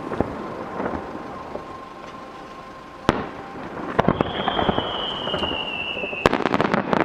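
Aerial fireworks bursting with sharp bangs and a dense run of pops. From about four seconds in, a long high whistle slowly falls in pitch for about two seconds, then gives way to a rapid string of crackles.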